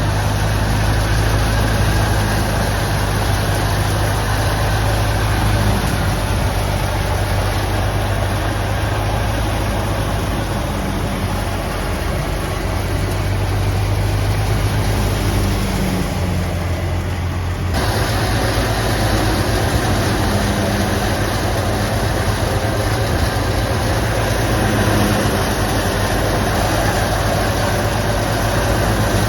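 Engine-driven wheat thresher running steadily: a continuous low engine drone under a dense, even rush of machine noise, changing abruptly about two-thirds of the way through.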